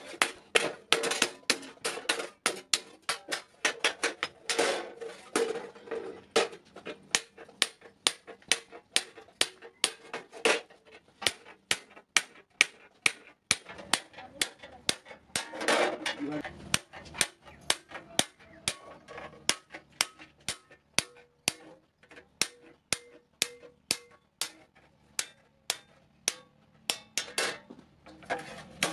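Hammer blows on a chisel cutting a circle out of steel sheet laid on an anvil, struck in a steady rhythm of a little over two a second, each blow leaving the metal ringing.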